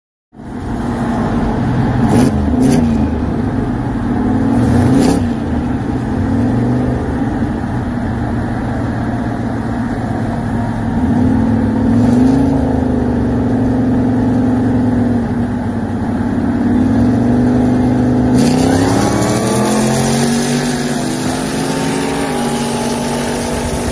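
Car engines heard from inside a moving car during a highway roll race: a steady cruising drone, then about eighteen seconds in the revs climb steeply in steps as the car accelerates hard.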